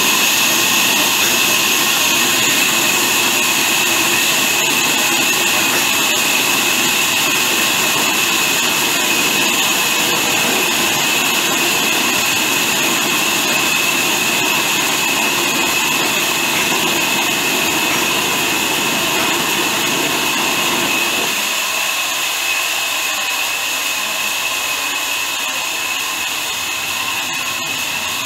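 Horizontal band sawmill running and sawing through a large log, a loud steady mechanical noise with a high whine. After about twenty seconds the lower rumble drops away and the high whine continues.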